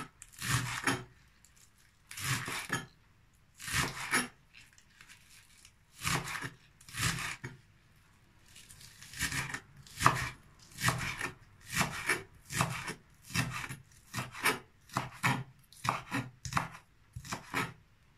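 Kitchen knife chopping green onions on a wooden cutting board, each cut a short crisp knock on the board. The strokes come slowly and unevenly at first, then quicker and steadier from about halfway, roughly one and a half a second.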